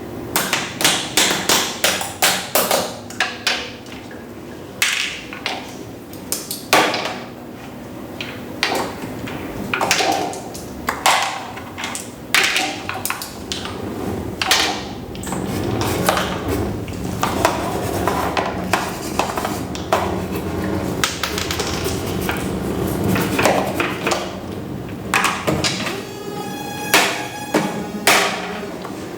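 A series of sharp taps and knocks on hard objects at an uneven pace, some ringing briefly; near the end it turns into a quick rattling run of taps.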